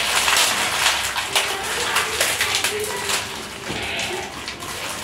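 Thin plastic snack wrappers crinkling and rustling as they are handled and opened, a dense run of small crisp crackles.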